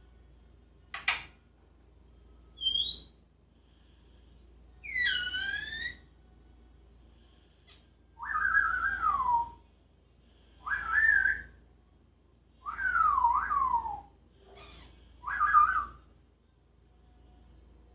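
Pet parrot whistling: a sharp call and a short chirp, then a harsh call, then four tuneful whistled phrases that swoop up and down, each about a second long with short gaps between.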